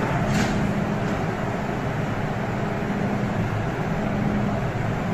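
MTR M-Train standing at a station platform: a steady hum and rumble from the train's equipment and the station air, with a faint low tone that comes and goes, and a short click about half a second in.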